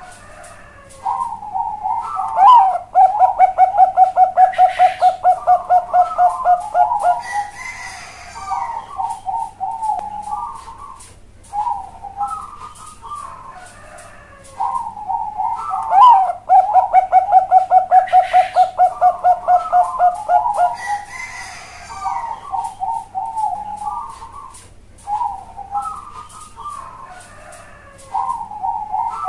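Zebra dove (Bangkok perkutut) cooing in a big, hollow voice. Two full song phrases, each a quick run of rapid notes followed by lower coos, with a third phrase starting near the end.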